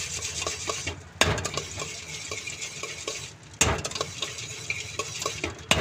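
Bhel puri mixture being tossed by hand in a stainless steel bowl: a steady rustle with many small taps against the metal. Three louder knocks come about a second in, about halfway through, and near the end.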